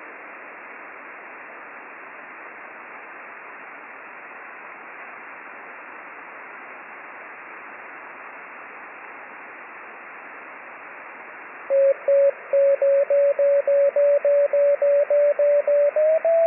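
Single-sideband receiver hiss from an Icom IC-9700 tuned to the RS-44 satellite downlink. About eleven seconds in, a Morse code (CW) tone starts, keyed as a quick even run of beeps about three or four a second, rising slightly in pitch near the end as the receiver is retuned.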